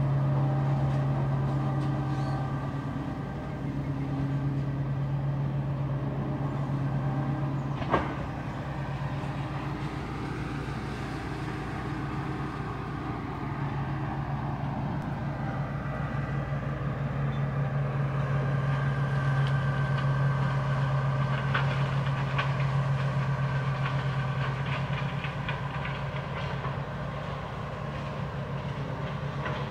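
Steady low hum with overtones, like a motor or engine running. It fades for several seconds and then returns, and a single sharp click comes about eight seconds in.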